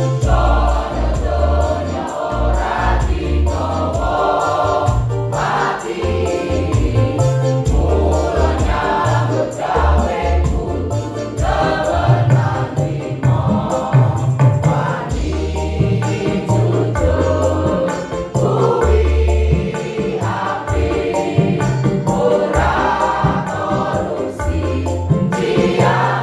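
Mixed choir of women and men singing a lively song together over an accompaniment with held bass notes and a steady beat.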